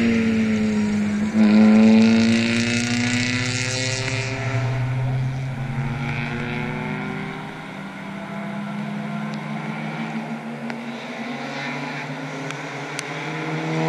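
Race cars going by on a wet circuit: an engine's pitch falls as one car passes, then another accelerates hard about a second in with rising pitch and a rushing hiss. The engine sound eases off in the middle and builds again near the end as another car approaches.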